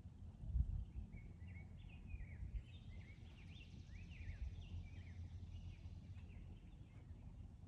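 Backyard birds singing, a run of quick chirps that rise and fall in pitch, over a steady low background rumble with a brief low thud near the start.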